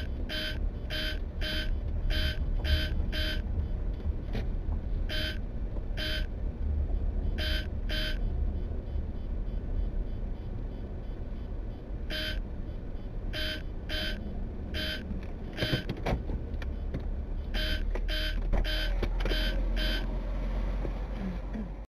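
Short electronic beeps, about two a second, coming in irregular runs with pauses between them, over the steady low rumble of a vehicle moving along a road.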